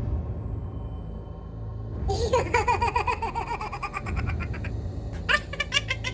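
A high-pitched cartoon giggling laugh in quick, wavering pulses, starting about two seconds in, with a rising swoop near the end, over background music with a low drone.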